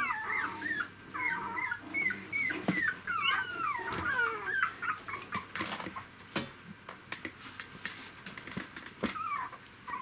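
Three-week-old poodle puppies whimpering: a quick run of short, wavering, high squeaks through the first half, a few soft clicks in the middle, and a couple more whimpers near the end.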